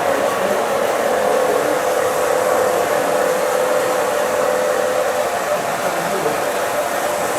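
G-scale garden railway train running: a steady whirring hiss with a held mid-pitched tone that fades out about halfway through.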